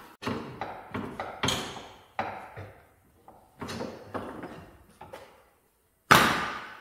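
Irregular hammer blows on metal, about ten strikes spaced a half-second to a second apart, each ringing out in the workshop; the last one, near the end, is the loudest.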